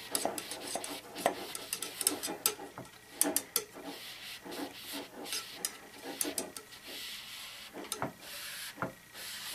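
Paper towel wrapped on a shotgun bore mop, scrubbing and twisting inside a springer air rifle's steel compression tube on a cleaning rod. It makes irregular rubbing and scraping with scattered clicks as old grime is cleaned out of the tube.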